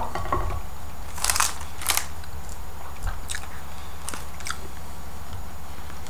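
A person eating close to the microphone: a few crunchy bites and chewing, spread over the first four or five seconds, with a steady low hum underneath.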